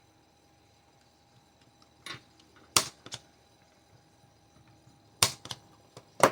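110 impact punch-down tool snapping as it seats wires into a patch panel's terminals: several sharp clicks in two clusters, the loudest a little under 3 seconds in and again just past 5 seconds.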